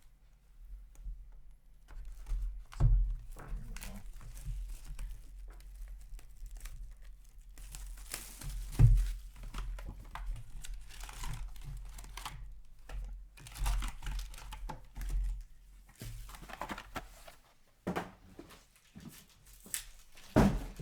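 Trading card packaging being handled and torn open: plastic wrap crinkling and tearing in irregular bursts, with a few sharp knocks as boxes are set down or handled.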